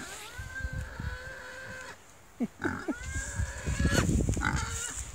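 Pigs squealing and whining at a gate: a long, level high-pitched whine, then brief sharp squeaks about halfway through and a second long whine, with low grunting and shuffling under the later part.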